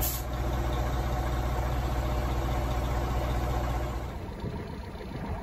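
Heavy diesel engine idling with a steady low rumble, which weakens about four seconds in.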